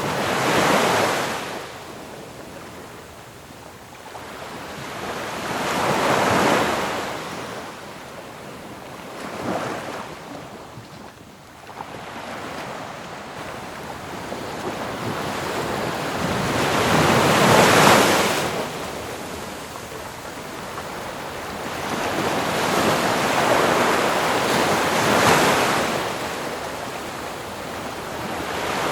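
Ocean waves breaking and washing up on shore: a hiss of surf that swells and fades about six times, several seconds apart. The loudest wave comes a little past halfway.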